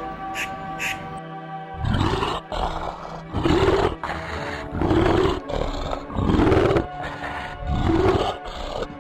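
A big cat roaring in a series of five deep, rough calls about a second and a half apart, starting about two seconds in, over background music.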